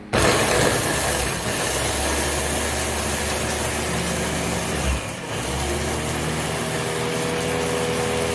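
Electric blender motor running at full speed, chopping fresh garlic, Thai chilies and cilantro into a paste. It starts abruptly and runs steadily, dipping briefly about five seconds in.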